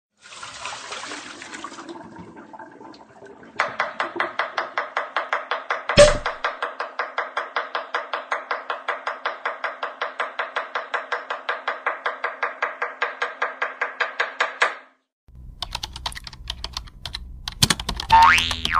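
Rapid, evenly spaced ticking, about five ticks a second, from about four to fifteen seconds in, with one sharp knock about six seconds in. Near the end a short rising whistle.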